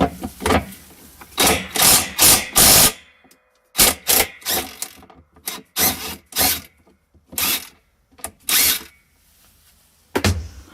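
An 11 mm metric socket tool loosening the centre bolt of a Kenmore Elite washer's agitator, in about a dozen short bursts with pauses between.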